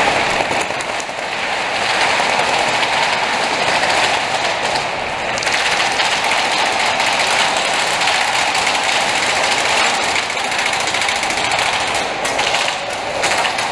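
Several airsoft guns firing on full auto without let-up, the BBs spraying and rattling against the field's walls in a dense, steady clatter.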